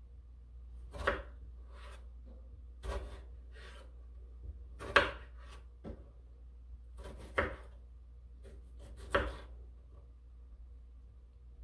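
Chef's knife slicing a tomato on a wooden cutting board: five slow cuts, about one every two seconds, each ending in a sharp knock of the blade on the board.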